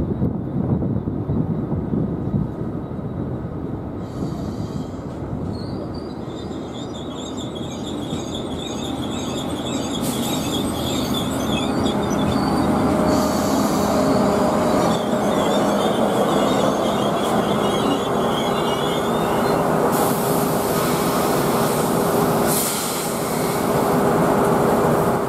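Irish Rail 2600 Class diesel multiple unit, with Cummins NTA-855 underfloor engines, running into the platform: a heavy rumble of engines and wheels at first, then high, wavering wheel squeal. A steady low hum sets in about halfway through, and a hiss comes near the end.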